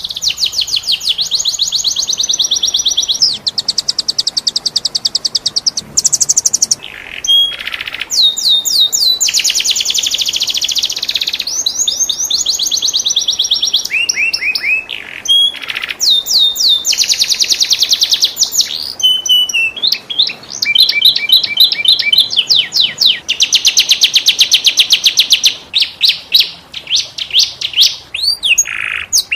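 Domestic canary singing a continuous song of fast rolling trills, each phrase a rapid run of repeated high notes that gives way to the next every second or two, with a few downward-sweeping notes between phrases.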